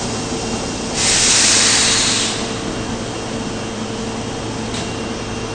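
Osaka subway 22 series train standing at the platform with a steady low hum, and a burst of compressed-air hiss about a second in that lasts just over a second.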